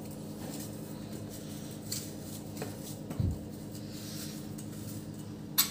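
Hand spreading oil over a stainless-steel plate: faint handling and light clicks of the plate, a dull thump about three seconds in and a sharp click near the end, over a steady low hum.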